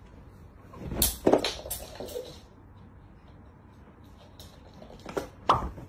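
A few sharp knocks and clatters: a quick cluster about a second in, and two more near the end.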